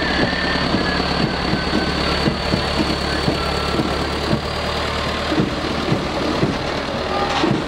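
Large vehicle engine idling steadily, with a steady high-pitched tone above it.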